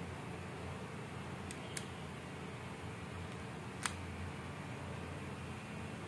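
Small plastic clicks as AirPods Pro earbuds snap magnetically into their charging case: two faint clicks about a second and a half in and a sharper one just before four seconds. A steady background hiss runs under them.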